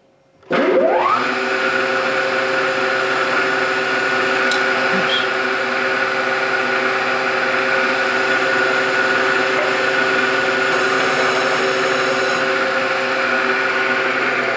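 Milling machine spindle motor starting about half a second in, its whine rising quickly in pitch as it spins up, then running at a steady speed while drilling a 1/4 inch starter hole.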